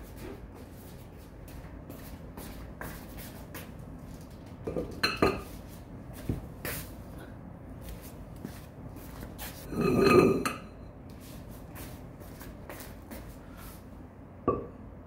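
Ceramic cat bowls clinking and knocking on a wooden floor and against each other, with scattered small clicks, a short cluster of knocks about five seconds in, and one louder, longer low sound about ten seconds in.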